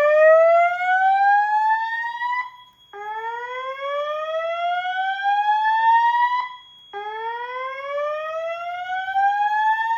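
Notifier fire alarm voice-evacuation speaker sounding the slow-whoop evacuation tone: three rising whoops of about three and a half seconds each, separated by short gaps, sounded between repeats of the spoken evacuation message. A faint steady high whine runs underneath.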